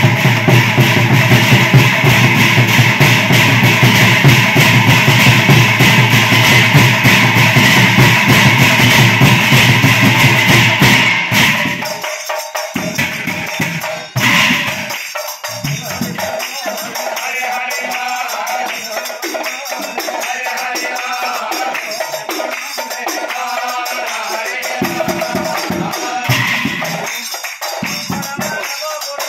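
Large brass hand cymbals clashing rapidly together with nagara drums in a loud Nagara Naam ensemble. About eleven seconds in the drumming and cymbals stop short, giving way to a quieter stretch of a voice chanting over light cymbal strokes.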